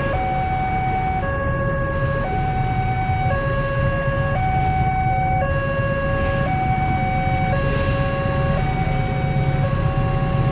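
Level-crossing warning alarm sounding a two-tone electronic signal that switches between a higher and a lower tone about once a second. Under it runs the steady low rumble of a diesel locomotive hauling a train of tank wagons up to the crossing.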